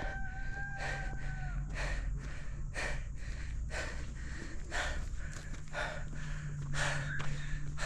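Hard breathing in short, irregular huffs, over a steady low rumble. A steady high tone sounds for the first second and a half.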